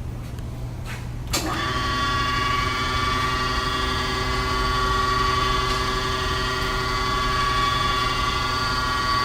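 Landis surface grinder's 1 HP spindle motor switched on with a click about a second in, then quickly coming up to speed and running with a steady multi-tone whine over a low hum.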